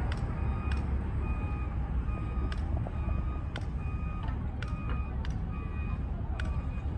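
Construction-site machinery: a steady low engine rumble with a vehicle's reversing alarm giving short repeated beeps about once a second, and a few sharp knocks or taps scattered through it.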